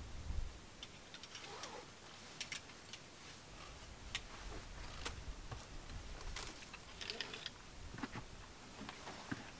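Faint, irregular clicks and taps of rope-ascending gear, an ascender and a GriGri on a climbing rope, as a climber works his way up a fixed line, about one or two clicks a second.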